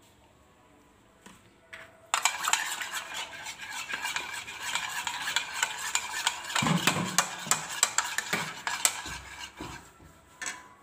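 Two raw eggs with salt being beaten in a bowl, the utensil clicking and scraping rapidly against the bowl. It starts about two seconds in and runs on until near the end.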